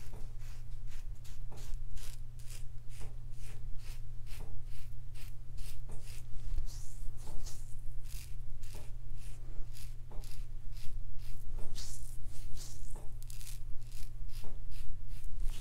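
Parker 63C open-comb safety razor, fitted with an Astra Superior Platinum blade, scraping through lathered stubble on the neck in short quick strokes, about three a second.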